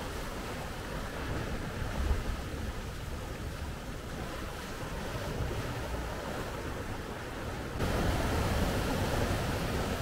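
Sea surf washing and foaming against volcanic shore rocks, with a low rumble of wind on the microphone. About eight seconds in it turns abruptly louder and brighter, with rougher surf breaking.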